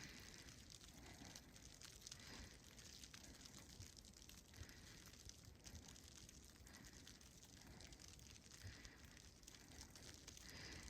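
Near silence: faint outdoor background with no clear event.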